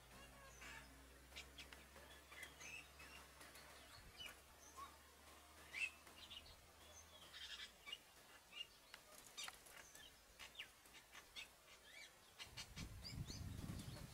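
Faint scattered bird chirps and calls over a quiet background, with a low steady engine hum from an idling vehicle that dies away about halfway through. A low rumble starts to build near the end.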